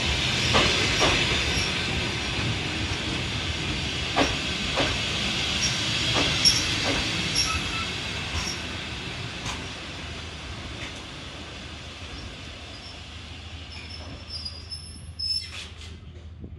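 Moldovan Railways passenger coaches rolling past at a platform: wheels clacking over rail joints under a steady rumble and hiss, with a few brief high wheel squeals. The clacks come further apart and the sound grows quieter as the train slows.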